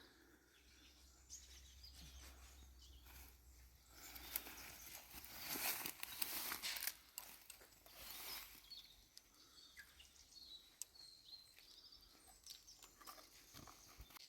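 Faint outdoor ambience with scattered bird chirps. Louder stretches of hissing noise come from about four to nine seconds in.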